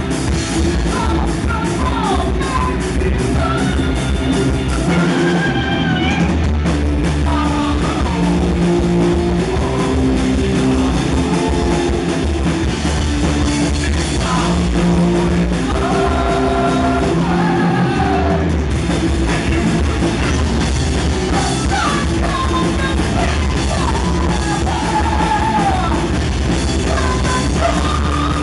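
Heavy metal band playing live at a fast tempo: distorted electric guitars, bass and drum kit, with sung and shouted vocals.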